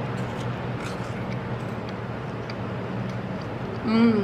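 Steady low background hum with hiss, with a few faint clicks.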